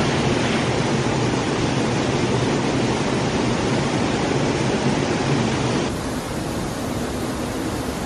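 Steady rush of a mountain river flowing over rocks, a constant even noise. Its tone shifts slightly about six seconds in.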